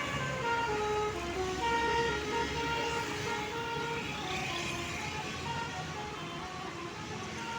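Bus telolet horn, a set of musical air horns, playing a winding melody of short notes that step up and down one after another, over the low rumble of the bus. The horn grows slightly fainter toward the end.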